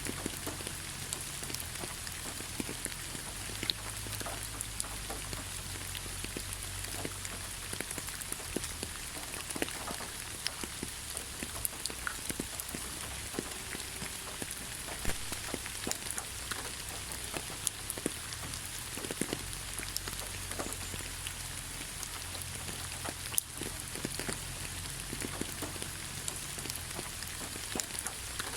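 Steady rain falling on leaves: an even hiss with many individual drops ticking at irregular moments.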